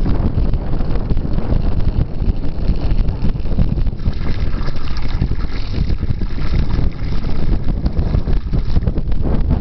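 Wind buffeting the microphone with a steady rumble. From about four seconds in, a thin jet of water splashes into a metal pot with a light hiss.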